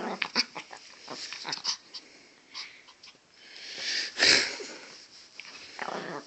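A small Pomeranian dog snapping defensively at a hand reaching for its owner's pregnant belly, which it is guarding: a quick string of short, noisy sounds, the loudest about four seconds in.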